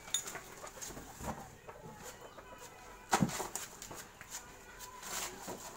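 Banana bunches being handled and sorted: scattered knocks and thuds with rustling, the loudest knock about three seconds in.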